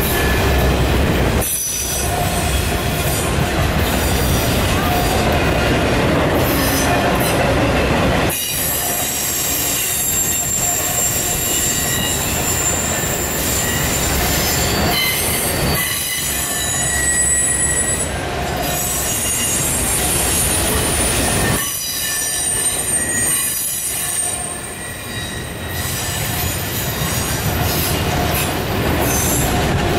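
Enclosed autorack freight cars rolling past close by: a steady rumble of steel wheels on rail, with high-pitched wheel squeal coming and going.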